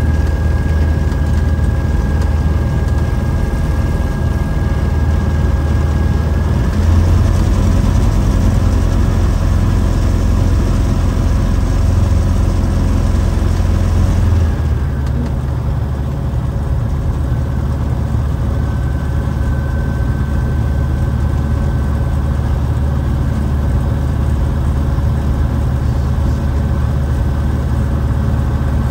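Single-engine light aircraft's piston engine and propeller running, heard from inside the cockpit. The engine picks up power about seven seconds in, then drops back to a lower, steady note about halfway through.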